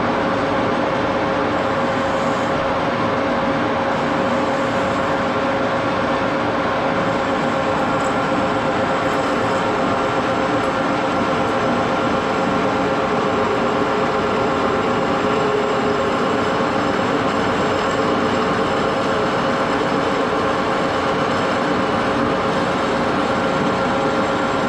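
A 1941 Axelson gear-head lathe running steadily, its geared headstock giving a constant whine of several steady tones over a mechanical hiss.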